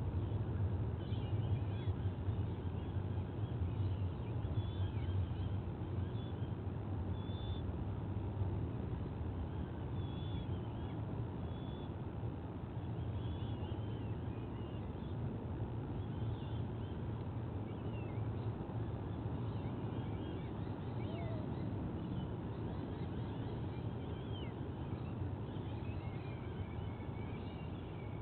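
Steady low rumble with faint, scattered high bird chirps and short whistles over it.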